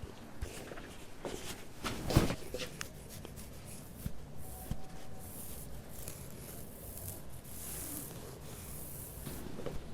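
Hands rubbing, scratching and tapping objects close to the microphone, with a few light knocks. The loudest knock comes about two seconds in, and a scratchy rubbing hiss follows in the second half.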